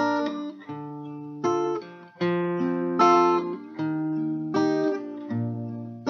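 Acoustic guitar playing chords in an instrumental break of a folk song. A chord is struck about every three-quarters of a second and left to ring out.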